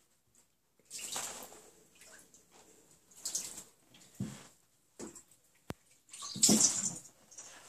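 Shallow bathtub water splashing as bobcats wade and paw at floating balls, in several short bursts, the loudest near the end, with a low knock about halfway through.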